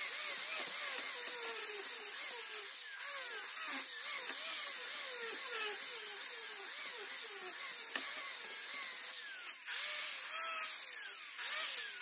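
Angle grinder beveling the edge of a cast aluminum pump housing. The motor's pitch rises and dips about twice a second as the disc is worked against the metal, and near the end the sound falters into short bursts.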